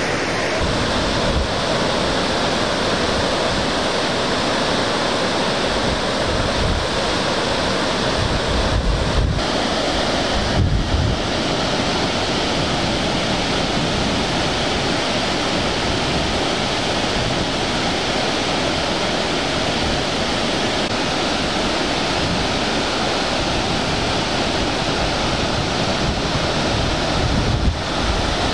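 Waterfall: a steady, dense rush of falling water, with wind buffeting the microphone a few times in the middle and near the end.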